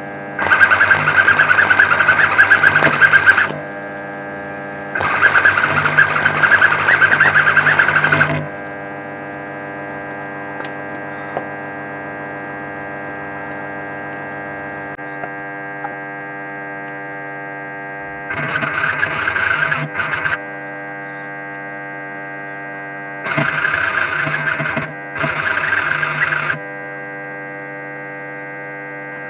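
Stick (arc) welding on steel pipe: five bursts of the arc's frying crackle, the first two about three seconds each, the later three shorter. A steady electrical hum continues between the bursts.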